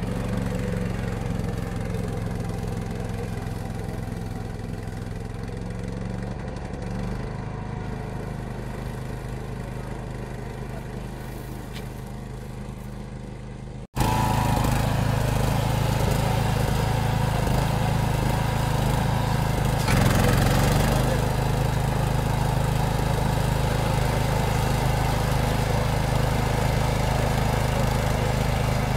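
Small engine of a ride-on DAKR tractor with a front flail mower running steadily while mowing tall grass, slowly fading as it moves away. After a sudden cut about halfway, the remote-controlled DAKR Golem slope mower's engine runs steadily and louder at close range, swelling briefly a few seconds later.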